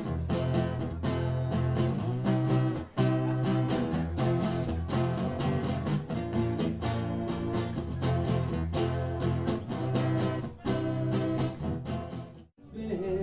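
Acoustic guitar strumming a steady chord rhythm with no voice. The music cuts out abruptly near the end, then a different song starts.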